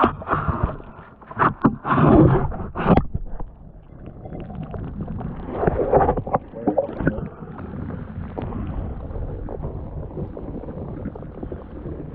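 Water sloshing and gurgling around a partly submerged camera, heard muffled, as a hand and landing net move a trout in the water. Loud irregular splashes come in the first three seconds and again about six seconds in, then a softer steady wash of water.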